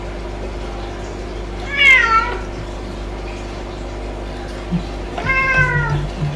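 Domestic cat meowing twice, two calls falling in pitch about three seconds apart, the first louder.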